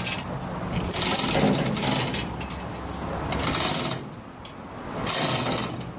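A motor runs steadily with a low hum, under several short scraping, rubbing noises as wooden timbers are handled and slid on the steel grate.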